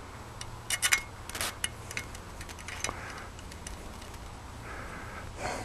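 Light metallic clicks and clinks as an aluminium arrow-shaft element of an Arrow satellite Yagi antenna is passed through the boom and screwed in by hand: a small cluster about a second in, then one more click about three seconds in.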